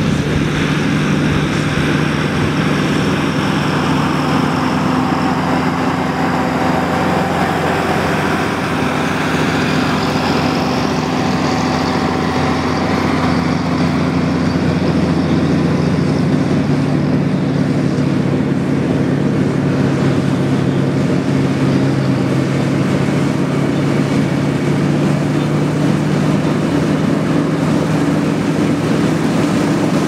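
John Deere combine harvester running steadily while cutting wheat: a low, even engine drone under a broad mechanical rush from the header and threshing machinery.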